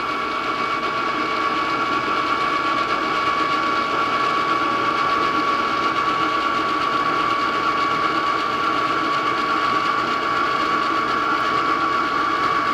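Self-refrigerating ice cream maker with a built-in compressor running just after start-up, its motor churning a freshly poured liquid mix. It is a steady hum with a constant whine, settling within the first second or two.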